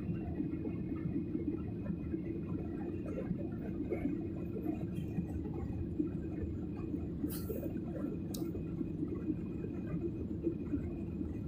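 Jet airliner cabin noise during the climb after takeoff: a steady low rumble of engines and airflow with a faint high whine, broken by two short hisses about seven and eight seconds in.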